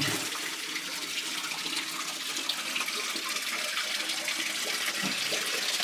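Steady rush of flowing water, a spring stream running through a mine tunnel.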